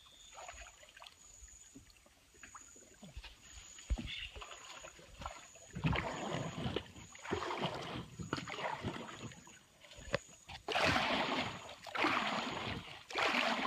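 Water splashing and sloshing around a swamped canoe in a flooded river as it is handled, in irregular strokes that grow louder from about eleven seconds in. A faint high note pulses steadily in the background.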